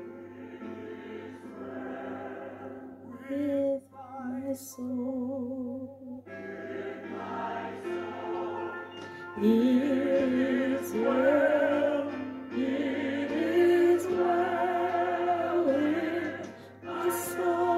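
Choir and operatic voices singing classical music with heavy vibrato, playing from a television. The singing grows louder about six seconds in and again around nine seconds, with notes swooping upward.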